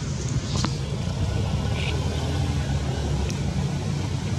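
Steady low outdoor rumble with a faint click about half a second in.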